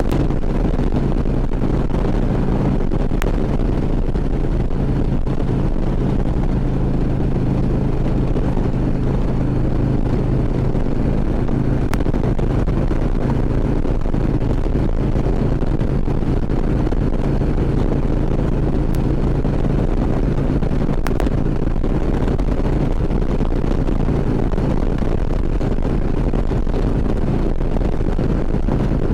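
Harley-Davidson V-twin touring motorcycle engine running at a steady cruise, with wind rushing over the microphone.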